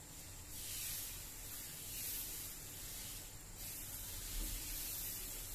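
Faint swishing of a steel ladle rubbing thin crepe batter in circles across a hot nonstick pan, swelling in about four soft strokes.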